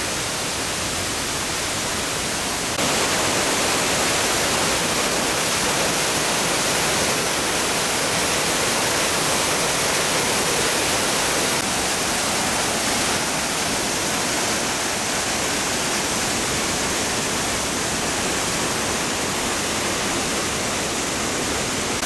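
Arvalem waterfall, a 50-metre cascade, pouring steadily into its plunge pool: a continuous even rush of falling water, a little louder from about three seconds in.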